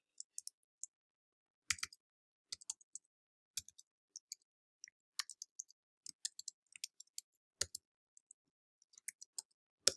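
Faint, irregular keystrokes of typing on a computer keyboard: single key clicks a few at a time, with short pauses between them.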